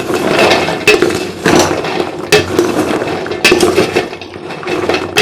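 Fried gavvalu being stirred and tossed with a ladle in a pan of sugar syrup: steady scraping and rattling, with several sharp knocks of the ladle against the pan.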